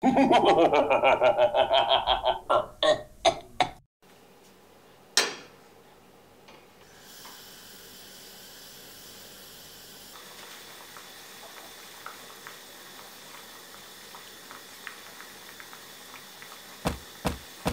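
A loud pitched sound with a run of quick beats opens, then one sharp click. A gas hob burner then hisses steadily under a stainless steel saucepan of water, with small ticks and pops as the water heats toward the boil.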